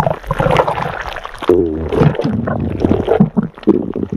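A person's stomach growling: irregular gurgling and bubbling, with a pitched, wavering growl about one and a half seconds in.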